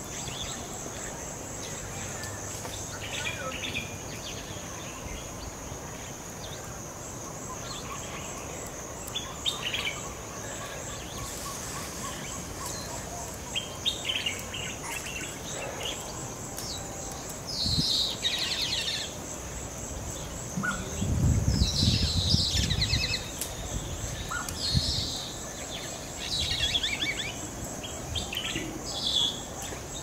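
Wild birds calling in a West African tropical forest, short calls scattered at first and then louder and more frequent in the second half, over a steady high-pitched insect drone. A low rumble comes in under the loudest stretch of calls about two-thirds of the way through.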